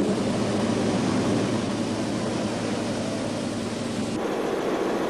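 Steady rushing noise with a low hum under it, its tone changing abruptly about four seconds in.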